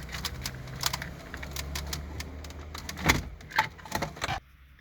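Rapid plastic clicks and knocks of wiring-harness connectors being handled and plugged into the back of a Uconnect head unit, over a low steady hum that cuts off near the end.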